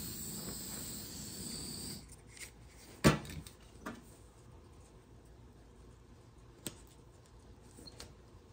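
Heat gun blowing a steady hiss onto the end of PEX radiant tubing to soften it for a fitting collar, switched off about two seconds in. About a second later comes a single sharp knock, then a few light clicks and rustles of the tubing being handled.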